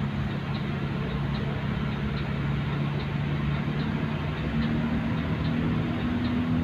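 Vehicle engine running at a steady drone while on the move, its pitch stepping up slightly about two-thirds of the way through, with faint high ticks repeating about twice a second.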